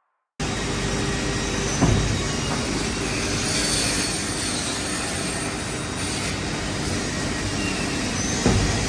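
Woodworking machinery starts up suddenly and runs loud and steady, with a faint high whine and two sharp knocks, about two seconds in and near the end. The machine is a CNC pallet-block cutting saw cutting blanks automatically.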